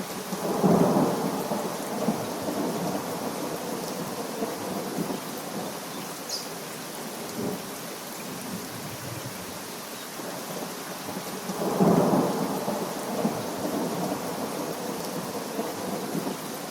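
Thunderstorm: steady rain with two claps of thunder, one just after the start and one about two-thirds of the way through, each rolling away over a few seconds.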